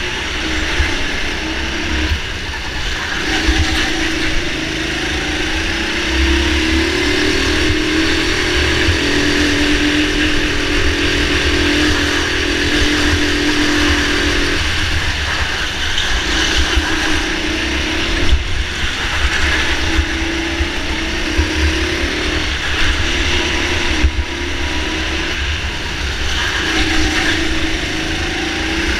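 Go-kart motor heard from on board, its pitch climbing as the kart accelerates down a long straight, dropping sharply about halfway through as the driver lifts for a corner, then rising and falling again through the following turns. A heavy low rumble of wind and vibration on the kart-mounted microphone runs underneath.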